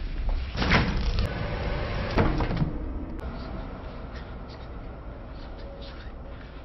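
Two heavy bangs about a second and a half apart, each with a short ring-out, over a low rumble that fades away.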